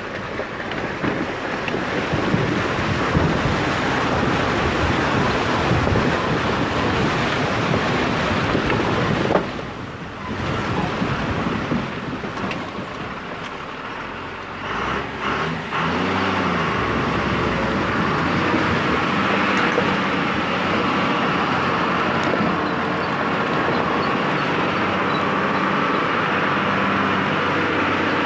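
A large vehicle driving slowly over a rocky, gravelly riverbed track. For the first half the noise is rough and jolting, with many small knocks, and it dips briefly about a third of the way in. Just past halfway the engine revs up and settles into a steadier running note.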